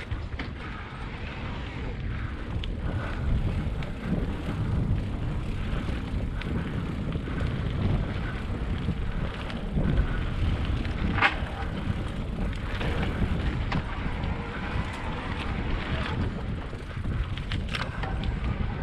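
Wind buffeting the microphone on a moving bicycle, over a steady rolling rumble of tyres on the road, with a few light clicks and one brief high sound about eleven seconds in.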